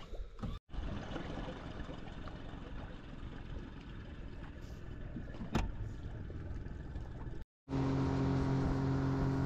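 Engine and travel noise from a moving vehicle, an even rush with one sharp click about five and a half seconds in. After a cut near the end, a steadier engine drone with a low, constant hum.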